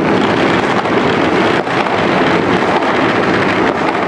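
Many firecrackers and fireworks going off at once, the crackles merging into a dense, steady din with no single bang standing out.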